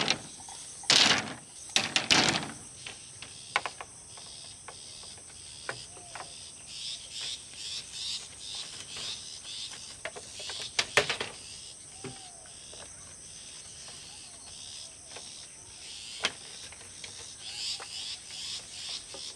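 Insects, crickets by the sound, trilling steadily on a high note, with faster bouts of chirping in the middle and near the end. Two loud knocks come about one and two seconds in, and a few sharp clicks follow later.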